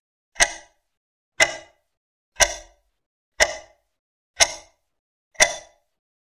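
Countdown ticking sound effect: six sharp ticks, one each second, each with a short ring.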